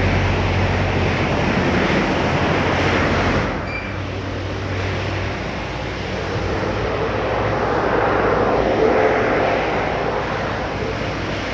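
Car wash machinery running with a steady rushing noise and a low hum. The hum drops away about three and a half seconds in, and the noise swells again later on.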